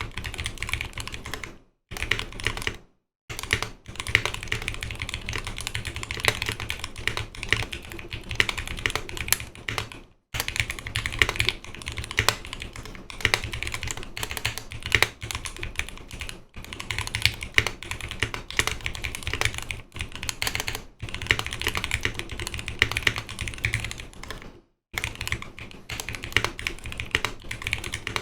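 Steady fast typing on a Noxary 280 custom mechanical keyboard, with lubed Zealio 78g V2 tactile switches on a 5 mm polycarbonate plate and GMK keycaps. The keystrokes come in dense runs, broken by a few brief pauses.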